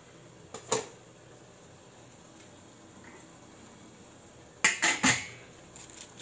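A stainless-steel pot lid clanking against metal cookware: one sharp clack under a second in, then three quick, louder clanks about five seconds in, followed by a few light clicks.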